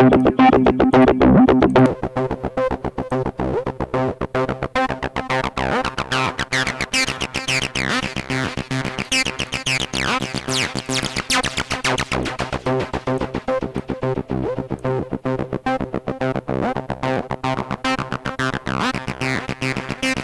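TB-303-style acid synth bass line, a fast run of notes with resonant filter sweeps, played through a wavefolder distortion. It gets quieter about two seconds in.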